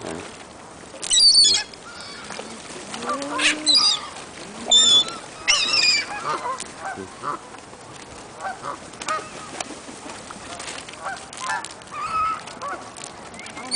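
A flock of seagulls calling while they scramble for thrown food: several loud, harsh, high-pitched calls in the first six seconds, then many fainter overlapping calls.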